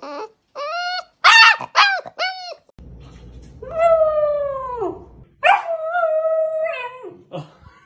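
Puppies yipping and howling: about four short yips in the first couple of seconds, then two longer howls, each holding its pitch and dropping away at the end.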